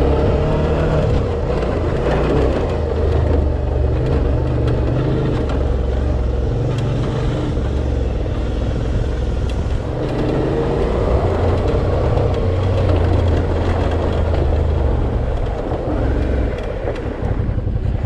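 Dual-sport motorcycle ridden off-road, its engine running with a shifting note over a steady low rumble.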